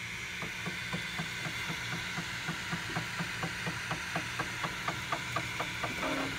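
FlashForge Finder 3D printer printing, its print head moving back and forth in quick strokes with an even ticking about four times a second, over a steady hiss.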